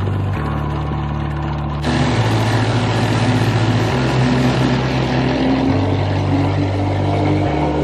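Mercury 60 outboard on a bass boat running at speed, with water rushing and spraying off the hull and wake that gets louder and fuller about two seconds in. Background music with sustained bass notes changing every couple of seconds plays underneath.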